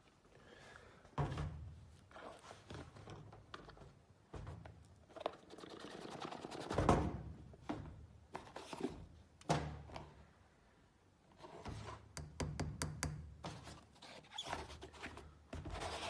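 Small black cardboard product boxes being handled: scattered knocks, taps and rustling, with a louder thud about seven seconds in and a quick run of clicks about twelve seconds in.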